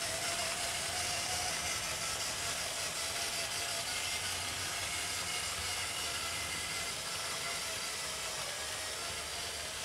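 Bachmann 00 gauge GWR 56xx 0-6-2 tank engine model running slowly, its electric motor giving a steady, slightly noisy whirr with a faint whine as it hauls a short goods train of wagons along the track.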